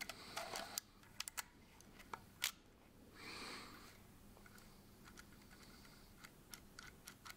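Faint clicks of a FED-5C rangefinder camera being worked by hand, its lever wind and shutter release. There is one sharper click about two and a half seconds in, then a short rasp.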